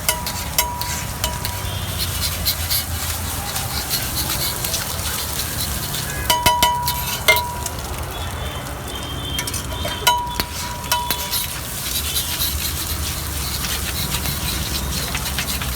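Egg dish frying on a hot griddle with a steady sizzle, and a metal spatula clinking against the pan in short clusters about six and ten seconds in.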